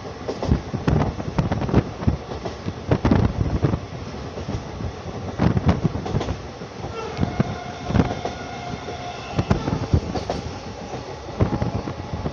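Express passenger train running at speed, heard from a coach window: the wheels clatter over rail joints in repeated, irregular loud knocks. A faint steady whine comes in about seven seconds in and fades a few seconds later.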